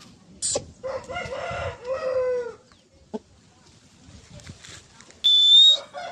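A fighting rooster crows once, about a second in, for about a second and a half, the call falling in pitch at its end. Near the end a short, high, steady whistle is the loudest sound.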